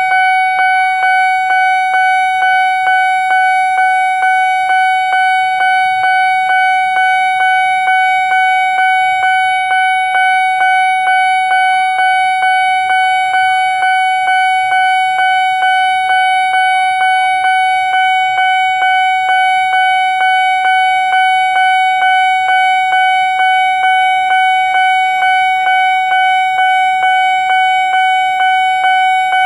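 Railway level-crossing warning alarm sounding loudly: an electronic tone repeating in a fast, even rhythm, signalling that a train is approaching.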